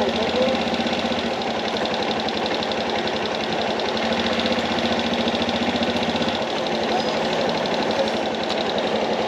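Italika V200 motorcycle's single-cylinder engine idling steadily with a fast, even beat.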